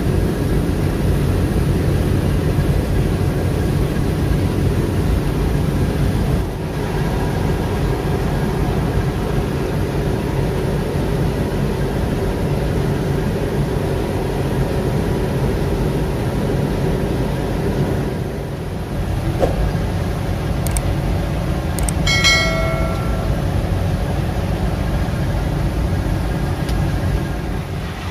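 Deutz-Fahr M 2385 combine harvester running steadily under load, a continuous engine and machinery drone. About three-quarters of the way through, a short pitched tone with several overtones sounds briefly over it.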